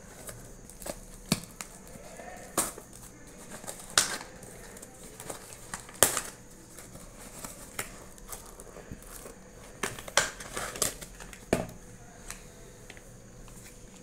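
Cardboard packaging being cut and torn open by hand and a foil food pouch pulled out and handled: irregular crackles, rustles and sharp clicks, the loudest about four and six seconds in and around ten to eleven seconds in.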